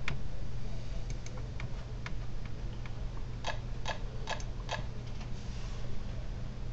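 Sparse light clicks and taps over a steady low hum, then four louder clicks evenly spaced about 0.4 s apart past the middle.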